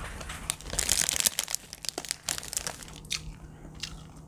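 Clear plastic bread bag crinkling as it is handled around a crusty loaf, densest about a second in, then scattered crackles.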